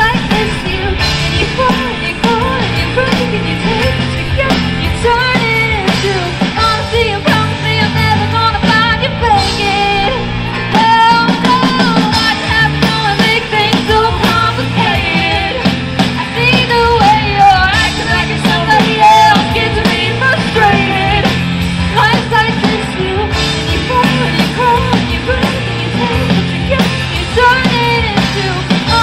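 Live rock band playing through a PA: drums, bass guitar, guitars and keyboard, with a bending melody line over a steady beat.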